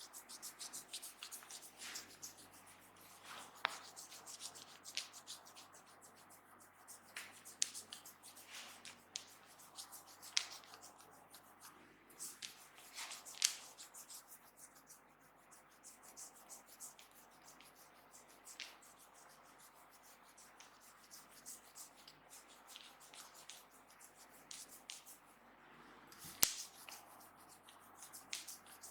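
A barber's hands rubbing and massaging over skin, with scattered soft clicks and finger snaps and one sharp snap near the end.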